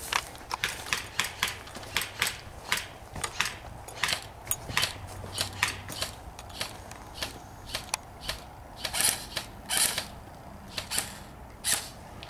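Airsoft guns firing single shots in an irregular exchange: sharp clacks, about two or three a second, some close together, some a little louder than others.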